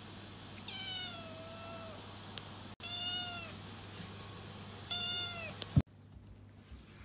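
Tabby-and-white kitten meowing three times. The first meow is long, about a second, sliding down in pitch; the other two are shorter. A sharp thump comes near the end.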